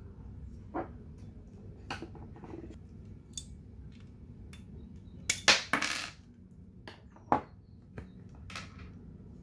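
Clicks and clatter of small metal and plastic parts and a small screwdriver handled while a Colt 1911 CO2 BB pistol's frame is taken apart. A louder rattle of parts comes a little past halfway, followed shortly by a single sharp click.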